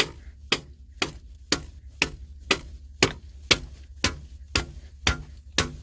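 A hammer striking the end of a 1/2-inch PVC water pipe in a steady run of sharp blows, about two a second, driving the pipe through concrete.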